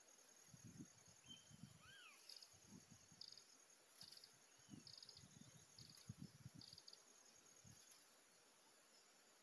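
Near silence outdoors: faint insects chirping in short pulses about once a second, with a few short rising-and-falling whistles early on and faint irregular low rumbles.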